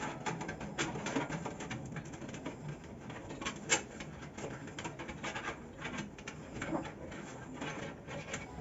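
Irregular clicks and light knocks of computer hardware being handled, with one sharper click a little before four seconds in.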